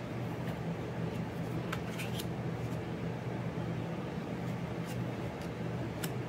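Matte oracle cards being slid off the top of a deck by hand, with a few light clicks and taps from the card edges, several close together about two seconds in and one near the end, over a steady low background hum.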